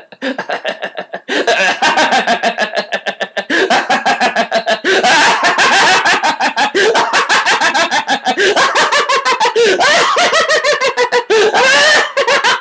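A man's deliberate laughter in rapid "ha-ha" pulses, stepping up in loudness in stages about one, three and a half and five seconds in, like shifting up through a car's gears. Near the end the laughter's pitch swoops up and down.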